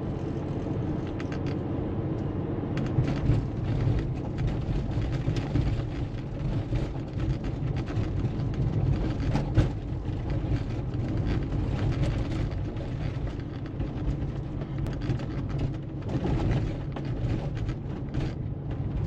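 Porsche 911 (996) with its flat-six engine running steadily while driving slowly over a potholed road, heard from inside the car. There is road and tyre noise with scattered brief knocks from the bumps. The freshly replaced shock absorbers make no squeaking over the bumps, and the driver judges the car fixed.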